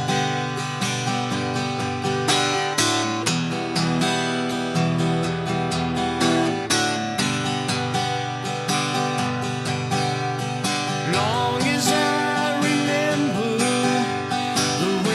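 Acoustic guitar strummed in a steady rhythm, playing G, D and E minor chords, moving on to G and C chords near the end.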